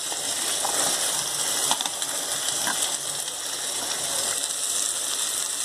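Chopped onions sizzling in hot oil in a pan, a steady hiss with a few faint scrapes and taps from a steel ladle stirring them.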